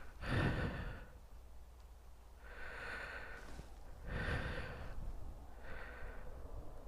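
A man breathing audibly, four breaths spaced about a second to a second and a half apart.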